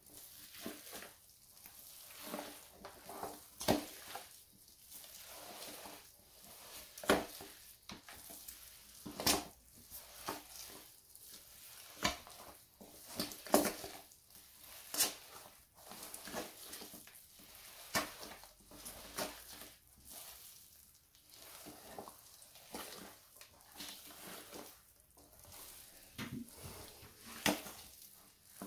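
Bare feet squishing and kneading moist chocolate cake in a stainless steel bowl: soft wet squelching broken by irregular sharp sticky smacks and clicks.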